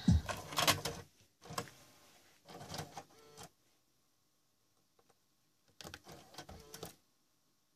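Music from a JVC car stereo cuts off about a second in, then short bursts of mechanical clicking and whirring come from the unit's mechanism as it switches from CD changer to tape, with a few faint ticks between them.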